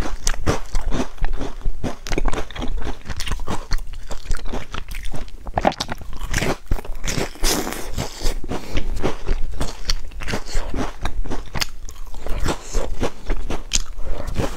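Biting and chewing soft, round golden sandwich cakes: a dense, irregular run of short mouth clicks and crackles picked up close to the microphone.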